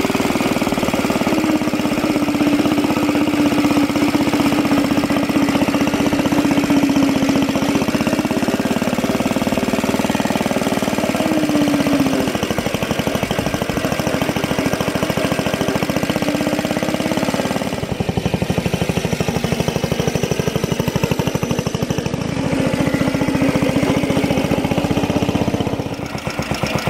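Small air-cooled engine of a homemade walk-behind tractor running wound up with a steady, rapid firing beat as the machine is driven; the engine has to be kept at high revs to keep it from dying out. The sound changes character about two-thirds of the way through and dips briefly near the end.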